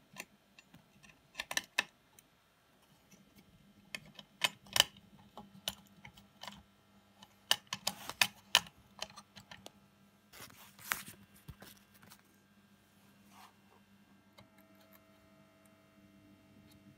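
Irregular light clicks and metallic taps of small parts and tools being handled on a valve-amp chassis while a new input jack is fitted into the front panel.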